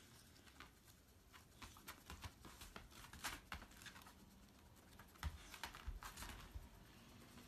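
Faint scattered clicks, taps and rustles from a dog and a hedgehog moving against each other on tatami mats, with a few soft thumps a little past halfway.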